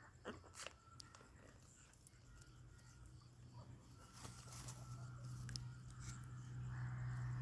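Faint scattered clicks and crunches from parrots, over a steady low hum that grows louder over the last couple of seconds.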